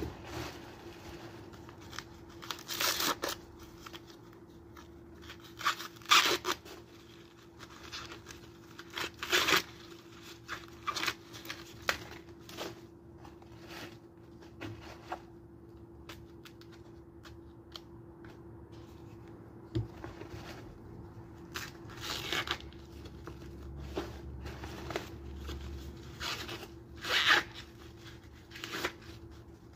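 Fresh ears of corn being husked by hand: the green husks ripped off in short tearing bursts every few seconds, with crinkling of the leaves between.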